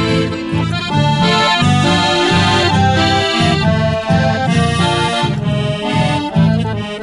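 Instrumental break in a song: an accordion plays the melody over a steady, rhythmic low accompaniment, with no singing.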